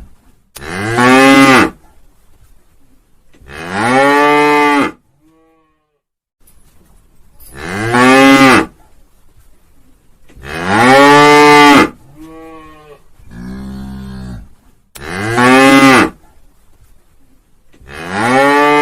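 Cattle mooing over and over: six loud, drawn-out moos of about a second each, each rising and then falling in pitch, with one softer moo about two-thirds through.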